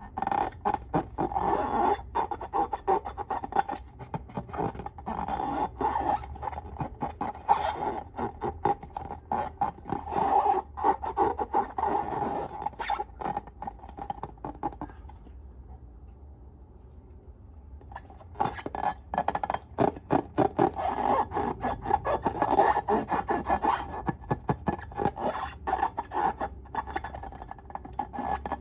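Slime being squished and worked by hand, a dense run of rapid sticky clicks and crackles. It goes quiet for a few seconds about halfway through, then starts again.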